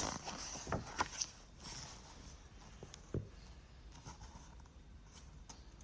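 Faint rustling and a few soft clicks from a picture book being handled, the sharpest click about three seconds in, over low room noise.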